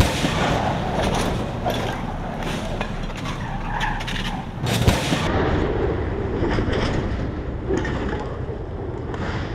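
Stunt cars driven hard on asphalt: engine noise and tyre sound, with a sharp bang about five seconds in.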